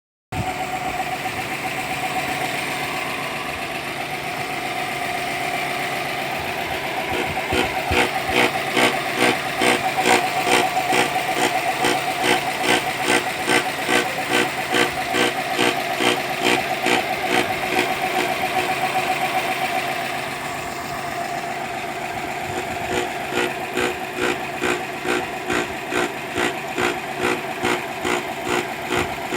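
Subaru EJ20 turbo boxer engine idling steadily, with a rhythmic knock about twice a second that starts about a quarter of the way in, stops for a few seconds, then returns near the end. The knock is the abnormal noise from the right engine mount as the car's body is rocked up and down by the front stabilizer bar.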